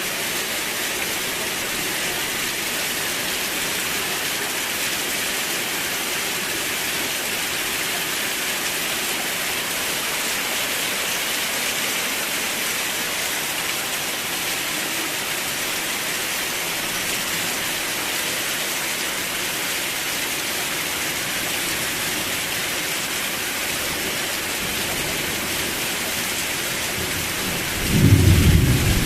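Steady, even rain, with a sudden low rumble of thunder breaking in near the end.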